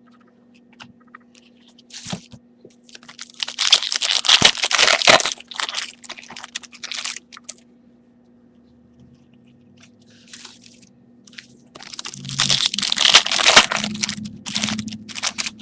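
Trading-card pack wrappers crinkling and tearing as packs are opened, in two bursts of crackling about three seconds long, with scattered small clicks of handling between them.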